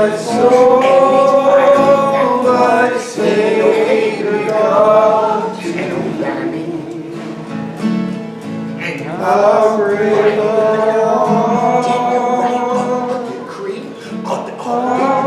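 Slow gospel singing: a man's voice holding long notes, with guitar accompaniment.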